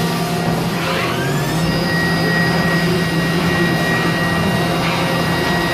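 2005 Mazak Variaxis 500 CNC mill's spindle running with a steady whine over the machine's hum; about a second in, the whine rises in pitch and then holds steady at the higher speed. Brief hissing swells near the start and again near the end.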